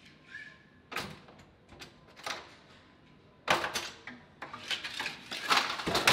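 Push-bar school double door being shoved and bumped open by someone on skis. A few faint clicks come first. From about halfway through there is a run of loud clattering knocks as the door, skis and poles bang together.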